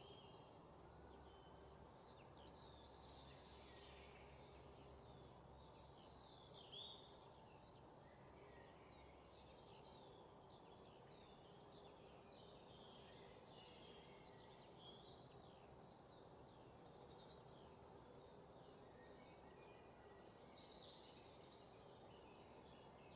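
Faint birds chirping: many short, high calls, some sweeping in pitch, over a low steady hiss.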